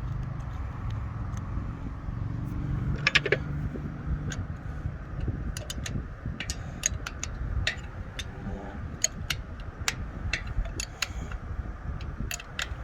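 Sharp metallic clicks and taps of hand tools on the engine as a coil bolt is run down and tightened. A louder cluster of clicks comes about three seconds in, and separate clicks follow every half second or so through the second half. A steady low machinery hum runs underneath.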